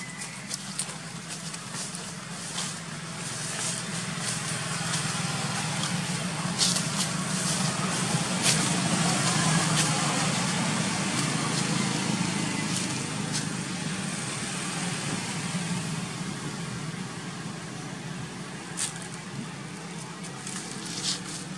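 Low, steady engine hum that grows louder toward the middle and then fades, as of a vehicle passing, with a few sharp clicks and rustles.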